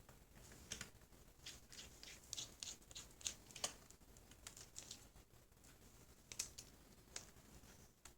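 Faint, irregularly spaced light clicks and small scratches, about fifteen in all, from close-range hand work on small parts.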